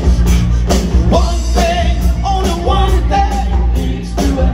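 A live rock band with electric guitars, bass, drums and keyboards plays as a lead vocal line comes in about a second in, heard from within the audience.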